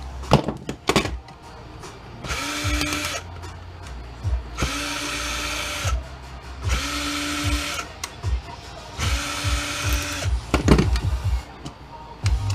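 A small electric drill or driver run in four short bursts of about a second each, its motor whining up to speed and holding, as in backing out screws. Sharp knocks and clicks of metal parts being handled come in between, with a cluster near the end.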